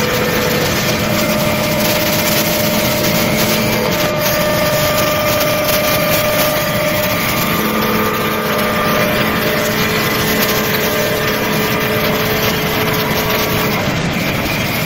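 Automatic wood lathe running and turning a wooden blank into a rolling pin or pestle profile: a steady, loud machine noise of motor whine and wood being cut, with several whining tones that shift in pitch a few times.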